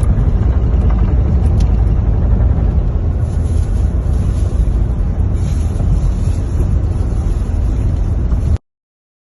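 Loud, steady rumbling noise, heaviest in the deep low end, that cuts off suddenly near the end.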